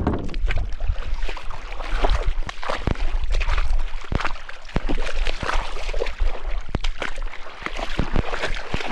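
River water sloshing and splashing close to the camera, with many sharp knocks and clicks throughout.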